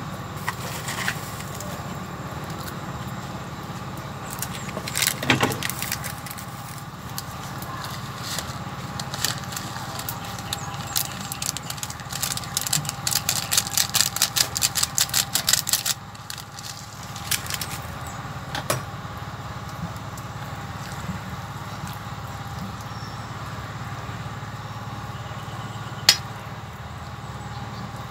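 Seasoning shaken from a plastic sachet into a cooking pot, a fast run of ticks at about five a second for some four seconds midway. Single sharp clicks come now and then over a steady low hum, one louder click near the end.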